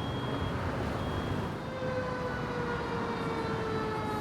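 Fire truck siren sounding over the rumble of the truck's engine; from about two seconds in, its tone glides slowly downward.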